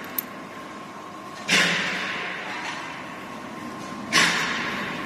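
A workshop machine letting out hissing bursts of air in a regular cycle: two in this stretch, each starting suddenly and fading over about a second, with a faint steady machine tone under them and a small click near the start.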